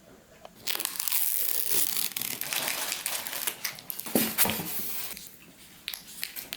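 Packaging being torn and crumpled, a dense crackling rip lasting about four seconds before dying down to a few scattered crackles.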